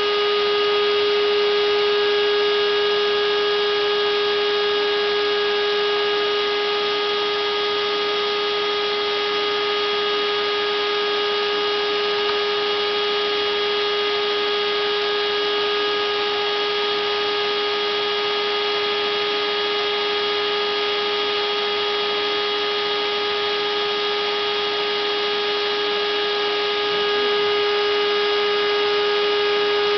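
Router spindle motor of a home-made CNC router table running steadily: one constant high whine over an even hiss, with no change in speed.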